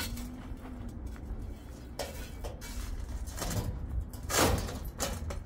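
Metal knocks and scraping as a steel hand truck's nose plate is worked under a heavy water heater tank on its metal stand, a few clanks about two seconds in and a longer, louder scrape near the end.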